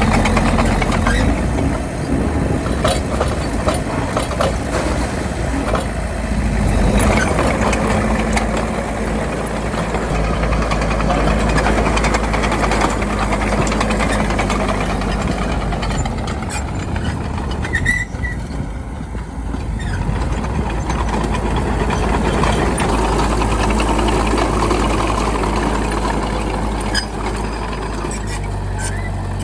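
Bulldozer's diesel engine running steadily, with scattered sharp knocks and clanks. It eases off briefly about two-thirds of the way through.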